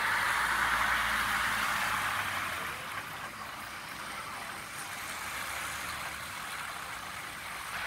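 A vehicle's tyres hissing through water on a flooded street, with its engine humming low, fading after about two and a half seconds into the steady hiss of rain on the wet road.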